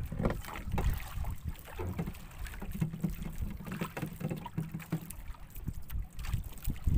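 Wind rumbling on the microphone and water lapping at a small wooden boat's hull, with scattered light knocks and clicks as the fish and hand line are handled.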